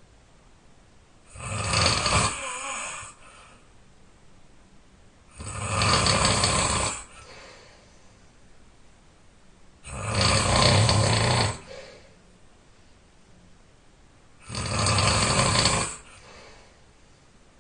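A person snoring loudly: four long snores, each lasting about one and a half to two seconds, coming about every four and a half seconds, with quiet gaps between.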